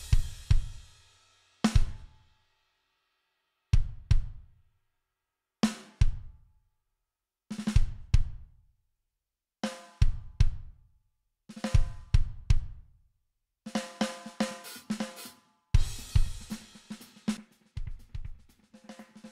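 A sampled drum kit (kick, snare, hi-hats and cymbals) plays short phrases about every two seconds, with silence between them. The kit is colored by guitar-amp, preamp and pedal plugin saturation, so the drums ring with a strong low tone. In the second half the hits come closer together and run almost continuously.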